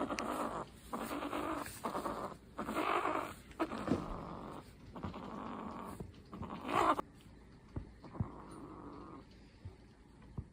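A cat purring in a run of rhythmic strokes, each about half a second to a second long, that grows fainter about seven seconds in.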